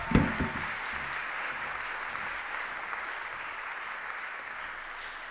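Audience applauding, a steady clatter of clapping that eases slightly toward the end. A few low thumps come right at the start.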